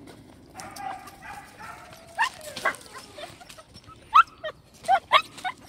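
Laika puppies yelping and whining: a series of short, high-pitched cries, coming thicker in the second half.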